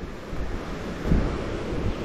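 Steady rush of river water spilling over a low concrete weir, with wind buffeting the microphone.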